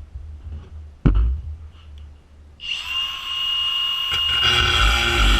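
Cordless angle grinder switched on, spinning up to a steady high whine, after a single knock about a second in. About a second and a half after it starts, a louder, coarser grinding joins as the disc starts cutting into the padlock's hardened steel shackle.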